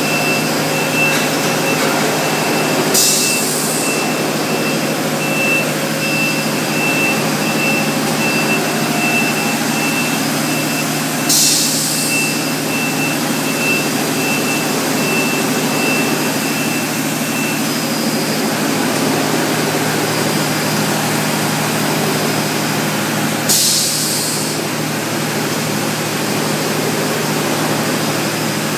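Milnor continuous batch (tunnel) washer and its laundry-plant machinery running: a steady loud hum with a thin high whine that stops a little past halfway, broken three times by short sharp hisses.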